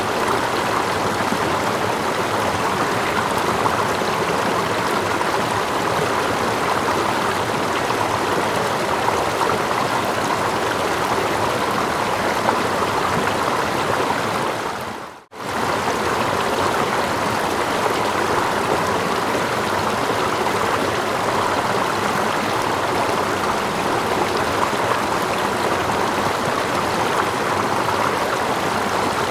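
Steady rushing of a stream: layered running water with gentle lapping and a small waterfall. About halfway through, the sound dips almost to nothing for under a second, then comes straight back.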